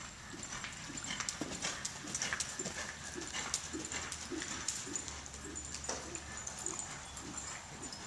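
A quarter horse's hoofbeats on soft arena dirt at a lope, a run of dull thuds mixed with scattered sharper clicks and knocks.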